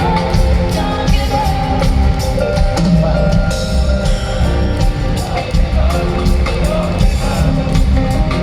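Live rock band playing with a lead singer and drum kit, loud, with heavy bass.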